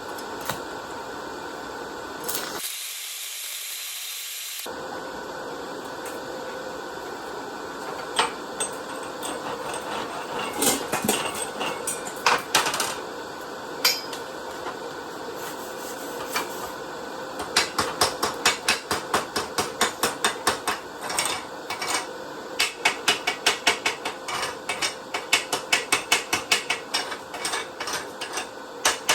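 A hammer striking metal: scattered sharp taps at first, then quick repeated strikes, about three a second, through the second half. A short high hiss about three seconds in, and a steady hum underneath.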